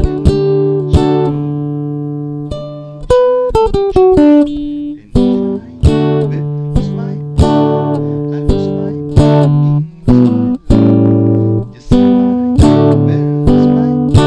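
Ibanez acoustic-electric guitar played through its pickup into a Behringer Xenyx Q802 mixer: chords struck and left ringing, with a quick run of single notes stepping downward about three to four seconds in.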